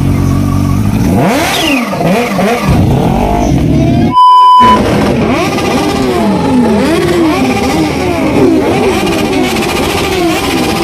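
Superbike engines revving over and over, the pitch climbing and dropping in quick succession after a brief steady idle. About four seconds in, a short, loud, steady beep with a moment of silence around it cuts across.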